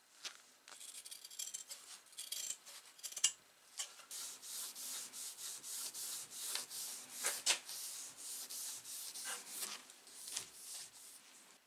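Sandpaper rubbed by hand over the black-painted steel head of a hammer to scuff the paint: a dry, scratchy rubbing in back-and-forth strokes, irregular at first, then steady at about two strokes a second from about four seconds in.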